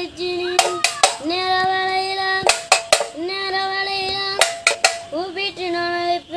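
A boy singing a call to the goddess in long, held, wavering notes and beating an empty paint tin like a pambai drum. Short runs of two or three sharp strokes on the tin fall between the sung phrases.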